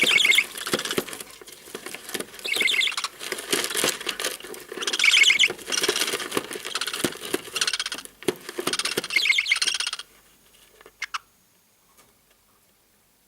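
Budgerigar nestlings calling in loud, harsh bursts every two to three seconds over constant scratchy rustling. Both stop about ten seconds in, leaving a few faint clicks.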